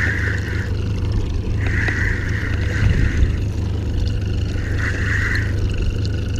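A boat's motor running steadily at trolling speed, a constant low drone, with a higher hiss that comes and goes several times over it.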